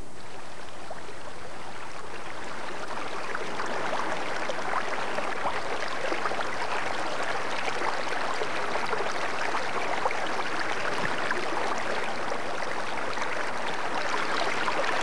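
Steady rush of the fast-flowing Salmon River running over rapids, a dense, crackling water noise that grows a little louder about three seconds in.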